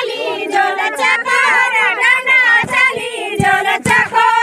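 Women singing a Garhwali jhumailo folk song together, a wavering group melody, with a few low thumps in the second half.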